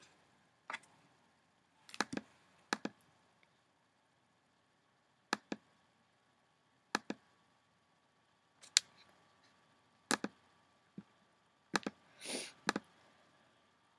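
Computer mouse clicks, short and sharp, coming singly or in quick pairs every second or two.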